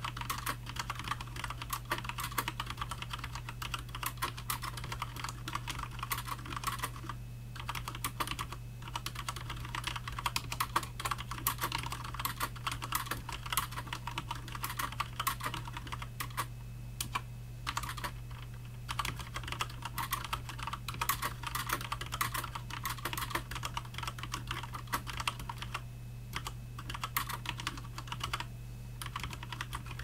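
Fast touch-typing on a Cooler Master MasterKeys Pro L mechanical keyboard with Cherry MX Red linear switches and thin stock ABS keycaps: a dense, continuous clatter of keystrokes at about 65 words per minute, broken by a few brief pauses. A steady low hum lies underneath.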